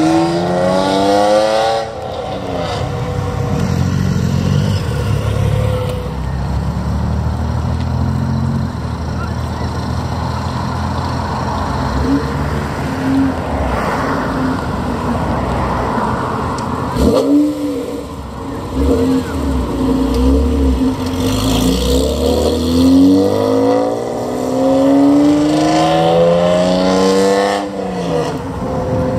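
Honda NSX (NA1) V6 engine revving hard as the car pulls away, the note climbing steeply, dropping at each gear change and climbing again. Between the pulls the engine runs lower and steadier.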